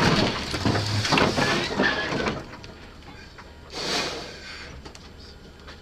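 Car crash: a vehicle strikes the kerb and a roadside sign, with a burst of impact and scraping noise lasting about two seconds, then another short crash about four seconds in.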